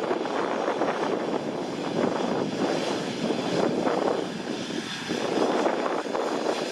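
Jet engines of a Boeing 777 freighter, its twin GE90 turbofans, during its landing: a steady rushing jet noise that swells and eases a little.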